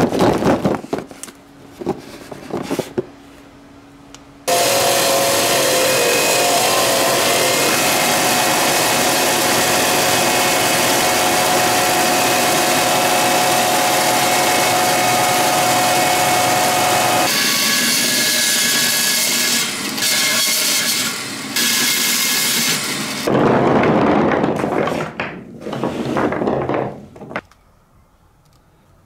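A few knocks and rattles, then a power tool grinding a flat face onto golf balls: a steady grinding run of about thirteen seconds and shorter runs after it. It goes much quieter near the end.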